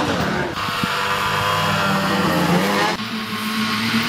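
Ski-Doo MX Z X-RS snowmobile's 800cc E-TEC two-stroke engine revving up and down with the throttle while riding. About three seconds in it switches abruptly to a steadier engine note.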